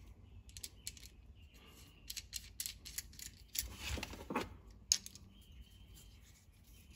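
Faint, irregular clicks and a short rub of a plastic outboard fuel filter and its small metal nut and bracket being handled and fitted by hand.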